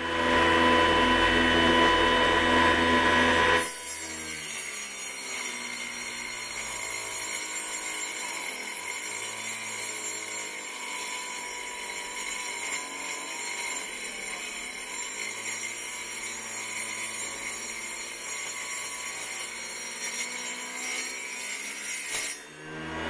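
Home-built mini table saw, its small circular blade belt-driven by a cordless-drill motor, runs free with a steady whine. From about four seconds in its pitch drops and wavers, the motor labouring as the blade cuts slowly through a thick acrylic (plexiglass) sheet. Near the end it picks back up to the free-running whine as the cut finishes.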